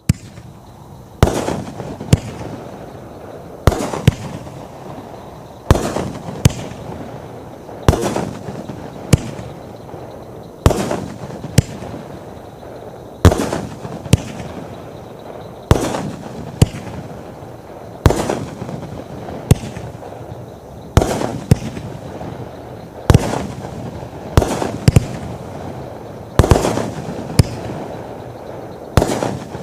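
A 500-gram, 63-shot 'USA Command' firework cake firing shot after shot, a sharp report every second or two, with a steady noise between the reports.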